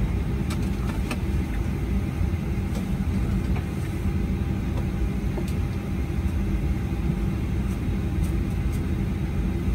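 Steady low rumble inside the cabin of a Boeing 737-800 taxiing on the ground, its CFM56 engines at idle, with a few faint clicks.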